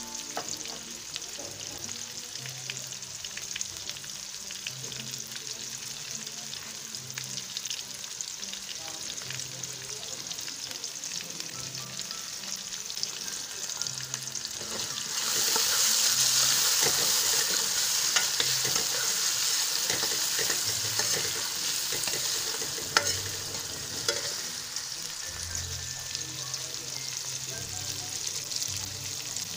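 Sliced red onions sizzling in hot oil in a metal pan, stirred with a metal spoon that clicks against the pan now and then. The sizzle grows louder about halfway through.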